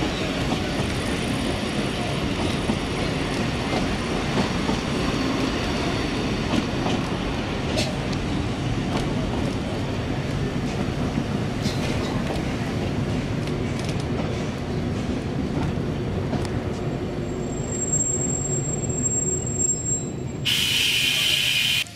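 Narrow-gauge (891 mm) steam train heard from on board: a steady rumble of wheels on rail with occasional clicks at rail joints, and a thin high wheel squeal for about three seconds near the end. It then cuts abruptly to a loud hiss of steam from the tank locomotive standing at the platform.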